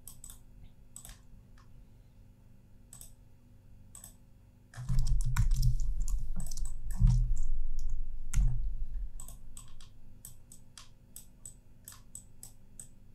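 Scattered clicks of a computer keyboard and mouse while drawing on the computer. A louder low rumble with a few dull thumps comes in about five seconds in and fades out around nine seconds.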